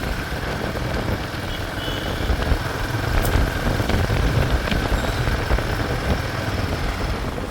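Royal Enfield Himalayan 452's single-cylinder engine running steadily as the motorcycle is ridden, with a steady rush of road noise underneath.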